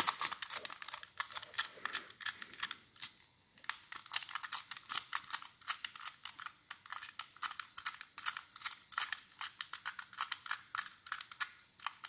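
Combination dials of a Brinks discus padlock clicking rapidly as they are thumbed round one notch at a time to set a new combination, a quick irregular run of small metal clicks.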